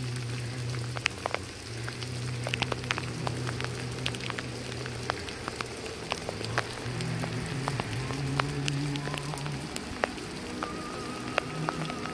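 Rain dripping in a redwood grove: scattered, irregular sharp drip ticks over a soft patter, with a low steady hum that comes and goes.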